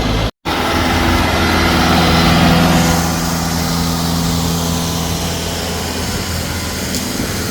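A heavy vehicle's engine running steadily, swelling to its loudest about two to three seconds in and then easing off slightly, as if working close by. The sound cuts out completely for a split second just after the start.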